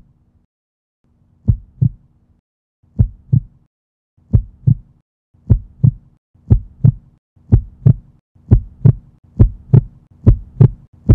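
Heartbeat sound effect: pairs of short low thumps, lub-dub, quickening from about one beat every second and a half to a little under one a second, with a faint hum under each beat.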